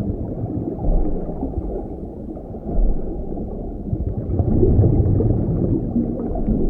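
Muffled underwater rumble and water movement picked up by a camera in its underwater housing, swelling and fading a few times.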